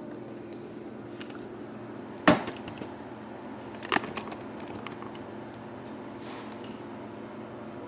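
AuLink personal air cooler's small fan running with a steady hum and hiss. Two sharp clicks or knocks sound about two seconds in and again about four seconds in, the first the louder.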